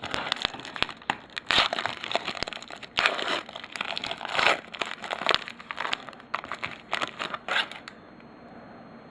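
Wrapper of a football trading-card pack crinkling as it is torn open and handled, in quick crackly bursts that stop about eight seconds in.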